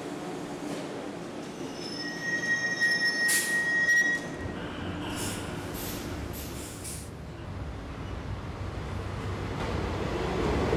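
Caracas Metro train at the platform: a high, steady squeal for about two seconds, with short hisses, then the low rumble of the train moving, growing louder toward the end.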